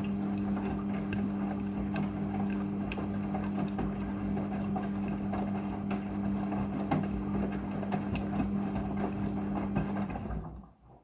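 Midea front-loading washing machine running in its rinse cycle: a steady electric hum with occasional light clicks, which stops about ten seconds in.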